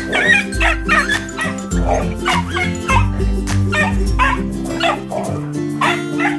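Jindo dogs giving short, high barks and yips about two a second while play-fighting, over background music with a steady bouncing bass line.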